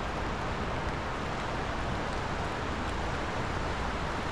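Steady rushing noise of a river in flood, running high and fast, with no breaks or changes.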